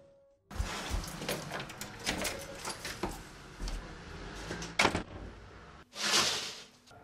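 A door being handled: a run of clicks, knocks and rattles, with a sharp knock near five seconds in and a short, loud rush of noise about six seconds in.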